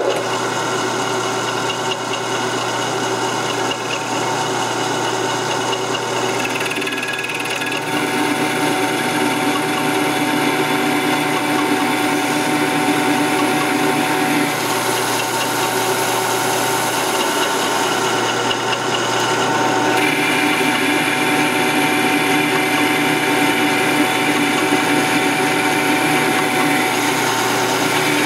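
Metal lathe starting up and turning down the outside diameter of a Zastava M70 AK rifle barrel: a steady machine whine with several fixed tones over the noise of the cut. Its tones shift a little about 8 and 20 seconds in.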